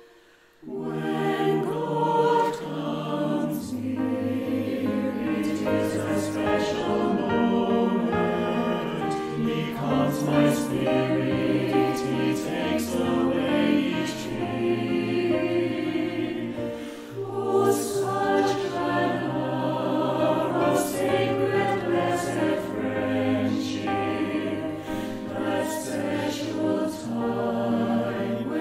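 Mixed choir singing a hymn in parts, the higher voices starting about half a second in and the men's lower voices joining a few seconds later, with the words "He calms my spirit, he takes away each fear" and "That special time when God comes near".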